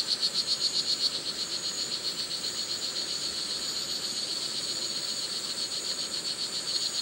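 A male frog calling for a mate: a rapid, even trill of about six pulses a second, clear at first, fainter in the middle and stronger again near the end. A steady high insect whine runs beneath it.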